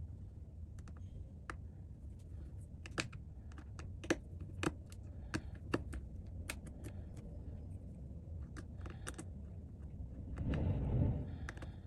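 Irregular small clicks and taps of tools handling the parts of an iPad during a repair, several of them sharper between about three and six seconds in, over a low steady hum. About ten and a half seconds in comes a brief, louder rustling noise.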